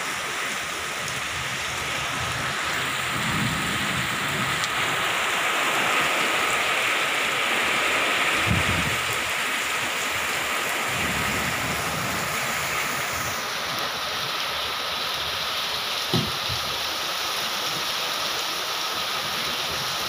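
Heavy rain pouring steadily in a storm, with low rumbles of wind swelling and fading now and then and a short knock about three quarters of the way through.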